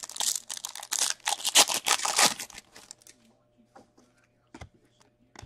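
An Upper Deck Allure hockey card pack's wrapper being torn open and crinkled for about two and a half seconds, then a few light clicks as the cards are handled.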